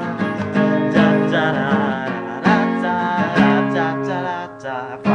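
Acoustic guitar strummed in chords, keeping a steady rhythm in an instrumental passage between sung lines.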